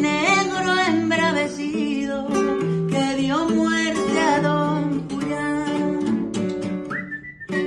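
Acoustic guitar strummed and picked while a man sings a wavering melody over it. About seven seconds in, a steady high whistled note comes in over the guitar.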